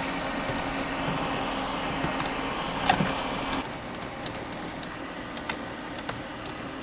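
A steady machine hum with a clear tone, which cuts out about three and a half seconds in, with light clicks and taps scattered throughout.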